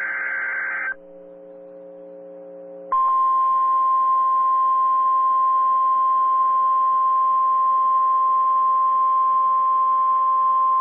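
NOAA Weather Radio emergency alert: the end of a SAME digital header burst of warbling data tones cuts off about a second in. A short, quieter gap with a faint hum follows, then from about 3 seconds in the steady 1050 Hz single-tone weather radio alarm sounds, loud and unbroken.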